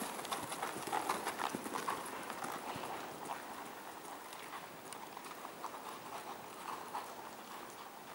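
Hoofbeats of a horse trotting on a sand arena footing, in a steady rhythm, growing fainter about three seconds in as the horse moves away.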